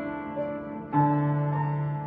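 Solo piano playing a slow, gentle piece. A single note enters about half a second in, then a fuller chord with a low bass note is struck about a second in and held.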